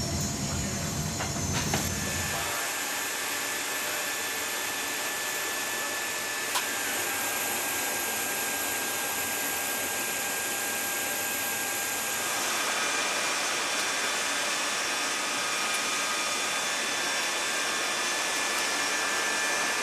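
Steady hiss of air and equipment noise in a C-17 cockpit on the ground, with a few faint high-pitched whining tones; a low rumble drops away about two seconds in.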